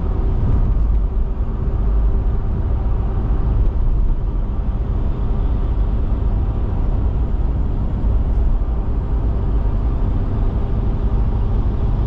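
Steady road and engine noise heard from inside a car cruising at highway speed: a dense, even low rumble from tyres and drivetrain.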